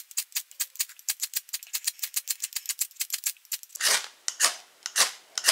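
Metal striker scraping down a ferrocerium (ferro) rod to throw sparks: a fast run of short scrapes, about eight a second, then four longer, louder strokes in the last second and a half.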